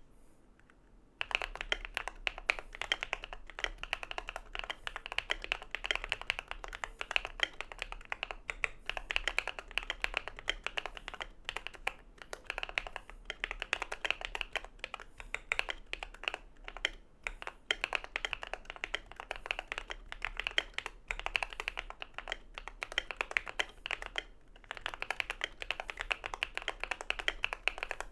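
Rapid typing on an Idobao ID80 V1 mechanical keyboard with factory-lubed Feker Matcha switches and Akko ASA-profile keycaps, its case tape-modded and PE-foamed: a dense, continuous run of key strokes starting about a second in, with a brief pause near the end.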